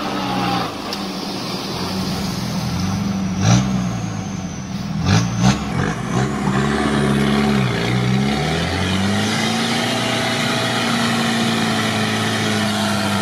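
UAZ off-roader's engine, heard from inside the cab, revving up and down again and again as it works through deep swamp mud, then held at high revs from about two-thirds of the way in. A few sharp knocks come in the middle.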